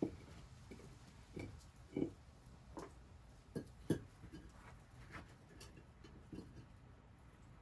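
Faint, irregular knocks and clicks, about a dozen, the loudest right at the start and around two and four seconds in.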